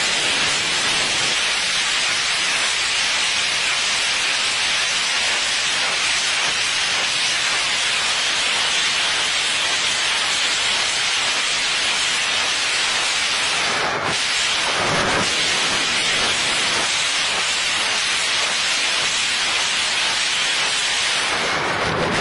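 Truck-mounted multiple rocket launchers firing a salvo: the rocket motors make a steady, loud rushing hiss that runs on without a break.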